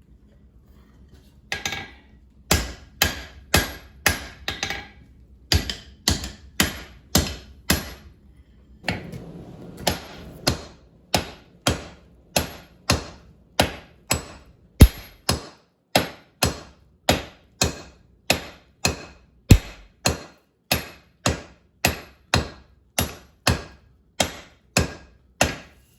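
Hand-hammer blows on hot steel at the anvil while forging a hammer eye drift. After a quiet first second or so, ringing strikes settle into a steady rhythm of about two a second. A brief hiss comes about nine seconds in.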